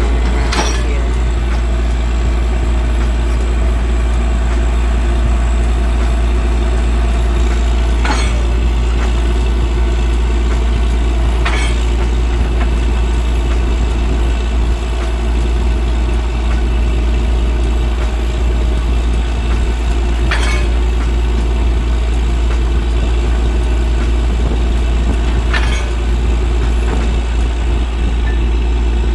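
Heavy engine running steadily at a constant speed, with five sharp knocks or clanks spread through.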